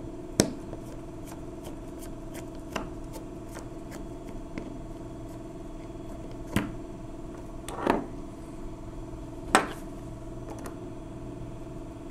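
Sharp metal clicks and taps as a screwdriver works among the steel parts of a 1920s Monroe mechanical calculator: about five louder clicks and several faint ticks over a steady low hum.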